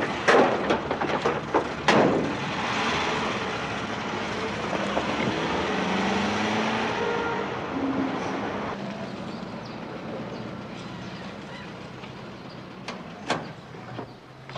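Van doors shut with a few sharp knocks, then the van's engine runs and its tyres rumble on the road as it drives off. About nine seconds in, this drops to a quieter vehicle hum, with a couple of knocks near the end.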